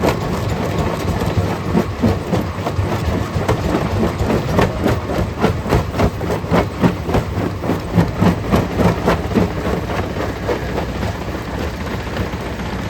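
Stone crusher running with a steady low hum while rocks knock and crack inside it as they are broken. The knocks come thick and irregular, several a second, then thin out near the end.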